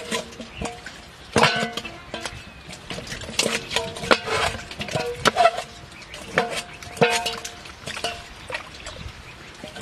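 Stainless steel bowls knocking and scraping against each other and the ground as muddy water is scooped and poured out. Each knock rings briefly, mixed with splashing water.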